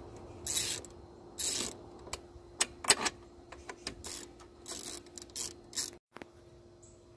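Ratchet wrench tightening belt tensioner bolts, clicking in short bursts about once a second as the handle is swung back. It stops about six seconds in, leaving only faint room tone with a low steady hum.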